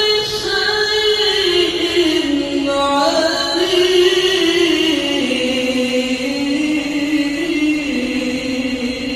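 A qari's solo voice reciting the Quran in the melodic tilawah style: one long, ornamented held phrase whose pitch winds up and down and settles lower toward the end.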